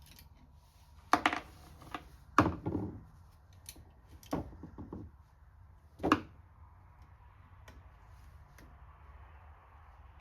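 Small metal carburetor parts and a hand tool being handled during reassembly: four sharp clicks and clunks, a second or two apart.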